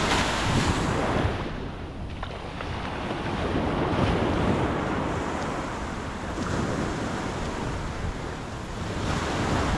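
Ocean surf breaking on the beach, the rush of the waves swelling and falling away several times, with wind buffeting the microphone.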